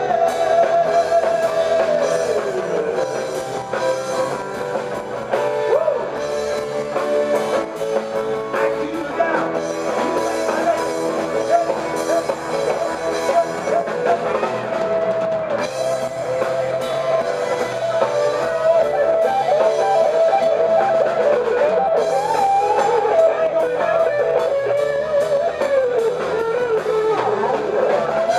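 Live rock band playing: electric guitars, keyboards and a drum kit, steady and loud without a break.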